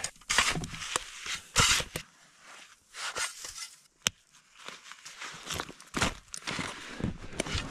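Light, granular powder snow crunching in irregular bursts as a person moves and works in deep snow, with a sharp click about four seconds in.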